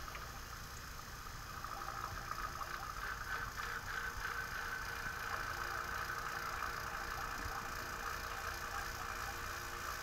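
HVAC vacuum pump running steadily while it evacuates an air-conditioning system, drawing it down into the tens of thousands of microns; the sound gets slightly louder about two seconds in.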